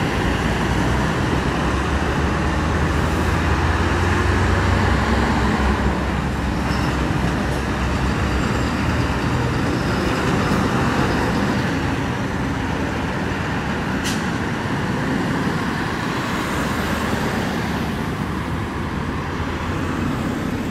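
Heavy diesel fire engines driving past one after another, the engine rumble strongest in the first several seconds as a truck pulls away. A single short, sharp click or hiss about fourteen seconds in.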